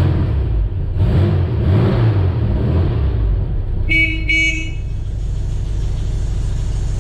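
A VW split-window bus's air-cooled flat-four engine running, its pitch rising and falling a little before settling to a steady idle, with two short toots of the bus's horn about four seconds in.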